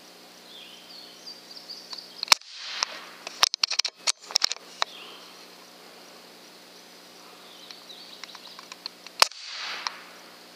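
Umarex Gauntlet .30 caliber PCP air rifle firing twice, about seven seconds apart, each shot a sharp crack with a short echo. Between the shots comes a quick run of sharp clicks as the bolt is worked to load the next slug.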